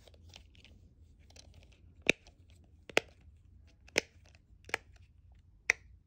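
Silicone bubbles of a pop-it fidget spinner pressed in with a finger: five sharp pops about a second apart, starting about two seconds in, after some faint handling rustle.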